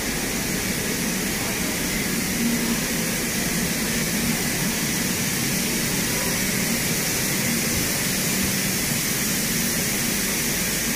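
Steady rolling rumble and rush of a passenger train's coaches moving past close by, with no break or change.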